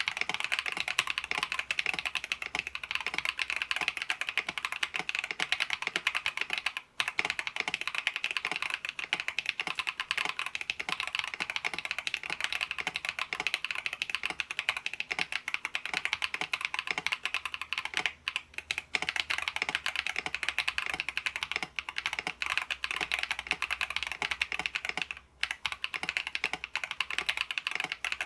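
Mechanical keyboard with lubed Akko Cream Blue V3 Pro tactile switches being typed on steadily: a fast, continuous stream of crisp keystroke clacks, broken by a few brief pauses.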